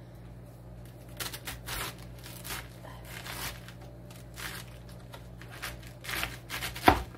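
Large kitchen knife slicing through a raw head of cabbage: a series of crisp, scratchy crunches as the blade cuts through the tightly packed leaves, with a sharp knock near the end as the knife comes down on the cutting board.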